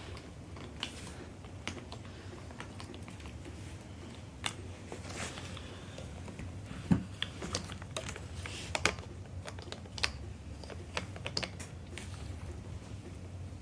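Small plastic toys and their packaging being handled and unpacked: scattered light clicks and taps, busiest in the middle, with one sharper knock about seven seconds in.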